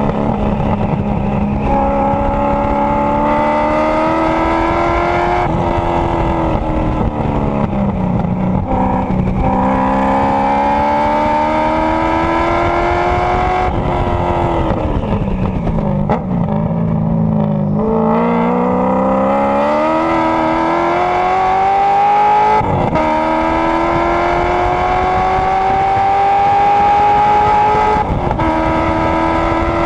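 Race car's engine at racing speed, its pitch climbing under acceleration and falling as it slows for corners. It slows and drops in pitch about halfway through, then climbs again, with two sudden drops in pitch near the end as it shifts up.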